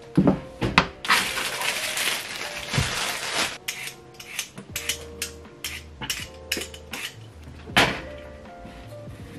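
Kitchen handling sounds: a plastic bag rustling and a cutting board set down on the counter in the first few seconds, then scattered clicks and taps of a vegetable peeler, a knife and glass bowls while a sweet potato is peeled, with a sharp knock near the end. Soft background music runs underneath.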